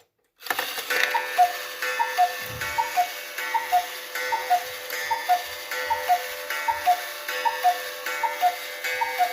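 Hubert Herr Black Forest cuckoo clock cuckooing: its bellows-driven whistles sound a two-note high-then-low call about every three-quarters of a second, about a dozen times, each call with a ringing gong strike, over a steady hum from the running striking train.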